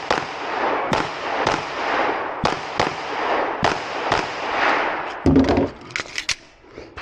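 A string of 9mm Glock 19 pistol shots fired in quick succession, roughly one every half second to second, each with a long echo. A heavy low thump comes about five seconds in, followed by a fast cluster of shots.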